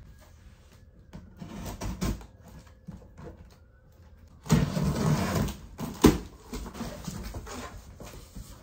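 Large cardboard box being opened with a box cutter: faint scraping and taps at first, then, about four and a half seconds in, a loud tearing scrape of packing tape and cardboard, with a sharp knock soon after, then lighter rustling as the flap is handled.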